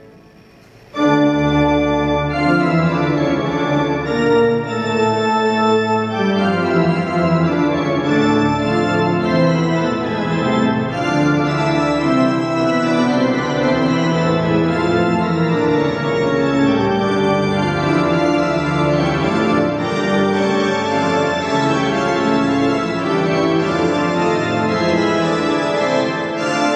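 Pipe organ playing. After a brief hush it comes in suddenly and loud about a second in, then goes on in full, sustained chords over low bass notes.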